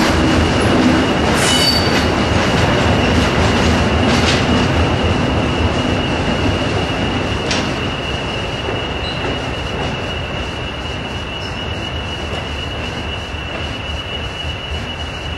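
A diesel-hauled train of coaches with a Class 37 locomotive passing and moving off, its wheels squealing on a steady high note over a continuous rumble, with a few sharp clunks in the first half. It grows slowly fainter as it draws away.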